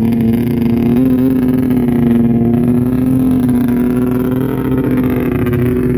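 Snowmobile engine running close by at a steady fast idle, holding one even pitch.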